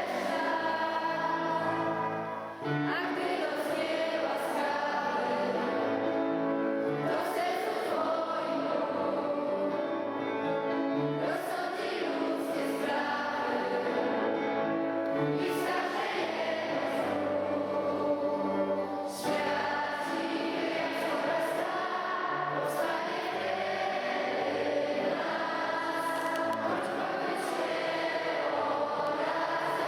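Music with a choir-like sound: sustained chords that change every second or so over a steady bass line, with no clear sung words.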